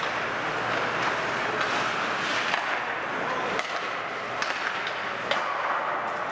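Ice hockey play on a rink: skate blades scraping and carving the ice, with a few sharp clacks of sticks hitting the puck.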